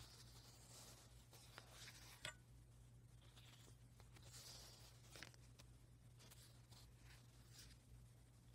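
Faint rustling and soft clicks as fabric swatch pages of a sample book are turned by hand, a few times, over a low steady hum.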